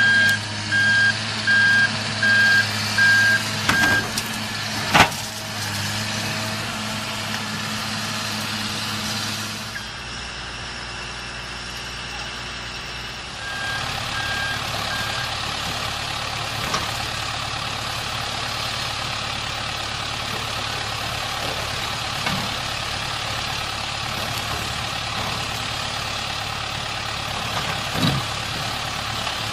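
Caterpillar hydraulic excavator running steadily while its bucket breaks into a concrete silo's base. A backup alarm beeps about twice a second for the first few seconds and briefly again about halfway through. There is a sharp knock about five seconds in and a few fainter knocks later.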